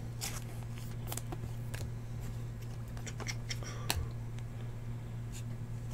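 Trading cards and a clear plastic card sleeve being handled: light scattered clicks and rustles, with one sharper click about four seconds in, over a steady low hum.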